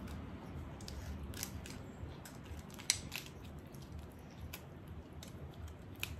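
Steamed crab being pulled apart by hand: irregular sharp little clicks and cracks of shell and cartilage breaking, over a faint low hum.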